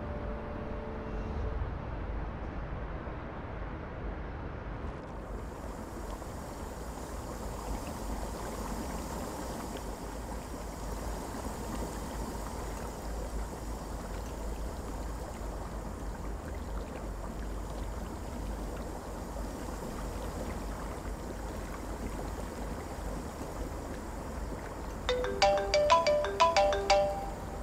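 Handheld garment steamer hissing steadily. About two and a half seconds before the end, a mobile phone ringtone starts playing a short melody of quick notes.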